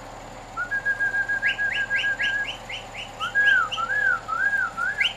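A person whistling in quick varied phrases: a rapid even trill, then a run of short rising chirps, then a few slow arching notes.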